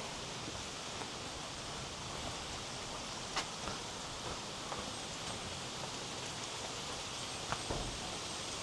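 Steady, even rushing background noise, with a faint click a little past three seconds in and another a little before the end.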